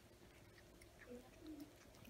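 Faint, low cooing notes, a couple of short gliding calls in the second half, over soft scattered clicks of cats chewing cheese.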